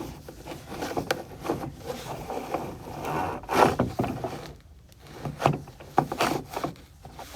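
Irregular scraping and rubbing with scattered knocks as an inspection camera's push cable is fed down a PVC dryer vent pipe clogged with lint.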